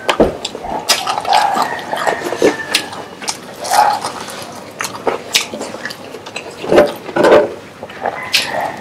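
Close-up eating sounds: wet chewing and lip-smacking with irregular sharp crackly clicks, as fried chicken and rice are eaten by hand and the fingers are licked.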